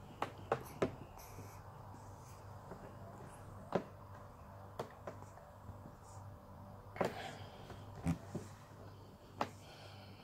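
Quiet room with a low steady hum and about eight soft clicks and taps scattered through it, the loudest about a third of a second in and about seven seconds in.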